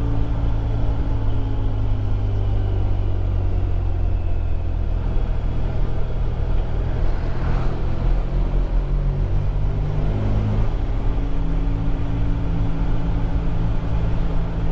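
Motorcycle engine running steadily under way, with its low note shifting in pitch about eight to ten seconds in.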